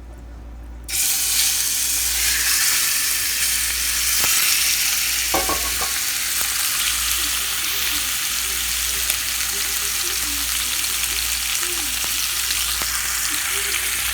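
Seasoned chicken thigh strips going into hot oil in a pan: a loud frying sizzle starts suddenly about a second in and then holds steady, with a few sharp clicks.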